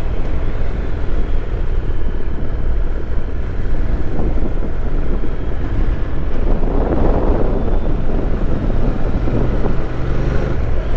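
Wind rushing over the microphone with the Honda NC750X motorcycle's parallel-twin engine running underneath at a steady cruise, with a brief louder swell of wind about seven seconds in.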